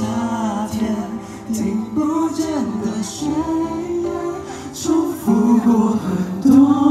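Male voices singing a Mandarin pop song live over instrumental backing, the sung melody moving in phrases about a second or two long.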